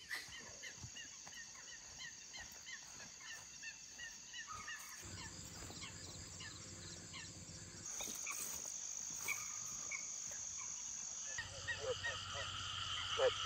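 Night chorus of crickets and other insects: a steady high trill with rows of short repeated chirps, the mix shifting a few times. Near the end frogs start croaking in quick runs of calls.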